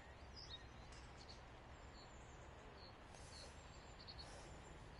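Near silence: faint outdoor background noise with small bird chirps here and there.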